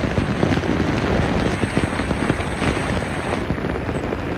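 A boat under way, with wind buffeting the microphone over the rush and crackle of water along the hull.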